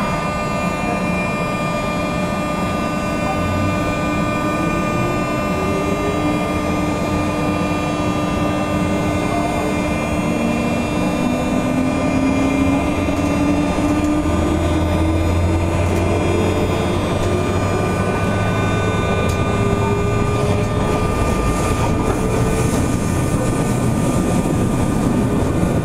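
JR West 201 series armature-chopper electric train running, heard on board. Steady high whines sit over a low running rumble, while lower motor tones rise steadily in pitch through the middle of the stretch as the train picks up speed.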